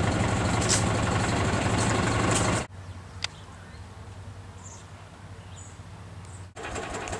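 A steady low engine hum, like a vehicle idling, that cuts off abruptly about two and a half seconds in. After it comes quiet outdoor background with a few faint ticks and short high chirps.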